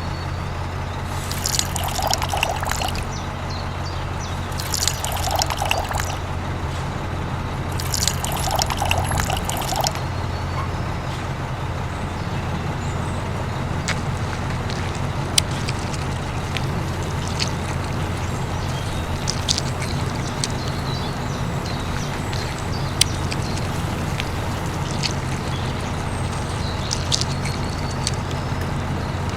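A steady low electric-sounding hum, with three short spells of liquid pouring in the first ten seconds and scattered light clicks after that.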